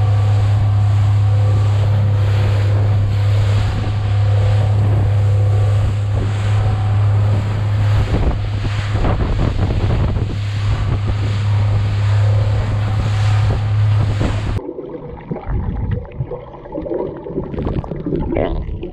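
Suzuki outboard motor running at speed with a steady low drone, over water rushing and splashing past the hull and wind on the microphone. About three-quarters of the way through it cuts to muffled underwater sound with gurgling.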